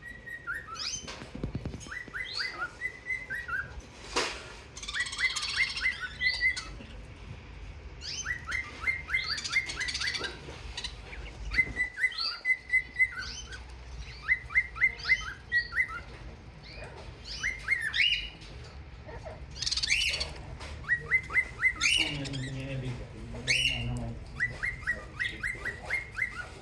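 Budgerigars chirping and chattering in quick runs of short chirps, broken by occasional louder, higher squawks.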